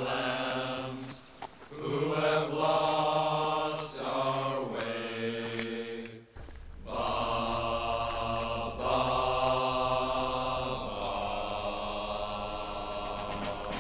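Background music of slow, sustained chanted voices in phrases of about two seconds, with a low steady drone joining about halfway through.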